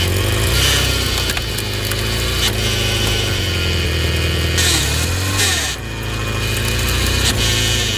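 Home-built firewood processor at work: a steady machine hum under the cracking and splintering of wood as logs are sawn and split. The wood noise comes in loud surges, with a short lull about two-thirds of the way through.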